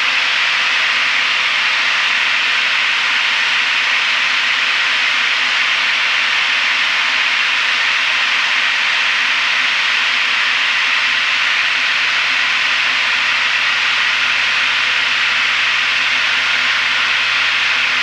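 Steady in-flight cabin noise of a Piper PA-32R single-engine plane: an even hiss of engine and airflow, with a faint low hum underneath that becomes clearer about halfway through.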